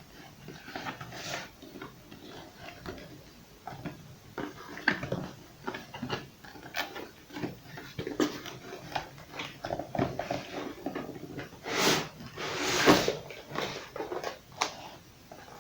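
Unpacking a sealed decoder box by hand: scattered clicks, taps and rustles as the seal is broken and the contents are handled, with a longer, louder rustle about twelve seconds in.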